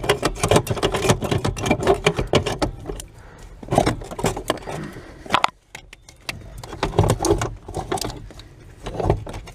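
Metal clattering and knocking as an S13 Nissan 240SX's 5-speed brake pedal assembly is worked into place under the dashboard: a run of rattling clicks for the first few seconds, then scattered knocks.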